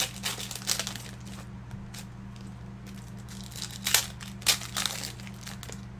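Sports cards and their plastic sleeves or wrappers being handled: scattered crinkling rustles and light clicks, the loudest about four and four and a half seconds in, over a steady low hum.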